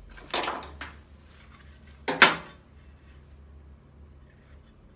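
Small objects being rummaged and shifted inside a metal-lined wooden box. A short rustling scrape comes near the start, and a louder, sharp scraping knock comes about two seconds in as an item is lifted out.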